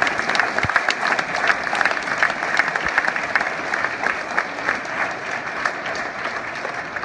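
Audience of schoolchildren and adults applauding, a dense, steady clatter of many hands clapping that eases off slightly near the end.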